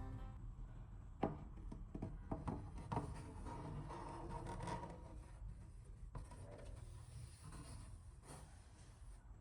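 Faint rubbing and scraping with a handful of light, separate taps, the sound of hand work on a small object.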